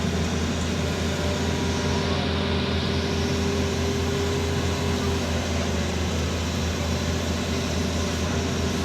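Excavator's diesel engine running at a steady speed, a constant low hum.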